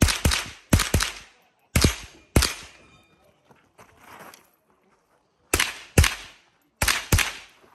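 A .22 rimfire semi-automatic rifle fired in quick pairs: about ten shots, a pause of about three seconds in the middle, then two more pairs.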